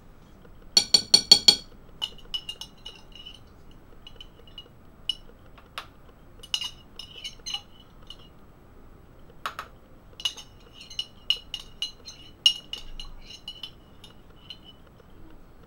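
A metal spoon clinking against the inside of a glass pickle jar as the pickles are dug out: a quick rattle of about six loud clinks about a second in, then scattered lighter clinks, many with a short ringing of the glass.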